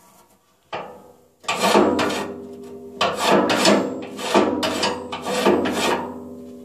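A rocket stove's steel shaker grate is rocked back and forth by its handle, sifting ash down through the grate. It makes rough metal-on-metal rasping scrapes in about four quick bursts of two or three strokes each. The stove's steel body rings on under and after the strokes.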